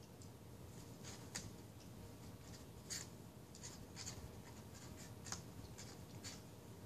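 A dog chewing a hard, dry homemade dog treat: faint, crisp crunches at uneven intervals, about eight in all.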